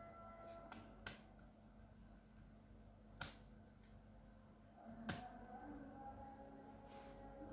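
Three sharp clicks about two seconds apart over faint background music.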